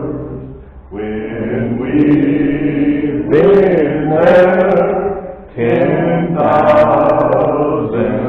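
Congregation singing a slow hymn in long, held notes, with a short break for breath about a second in and another about two-thirds of the way through.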